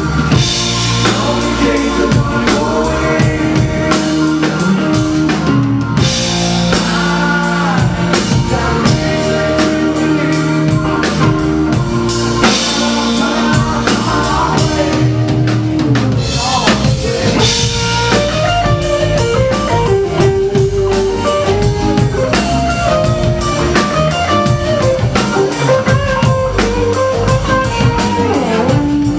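A live rock band playing at full volume: a drum kit keeping a steady beat under electric guitars.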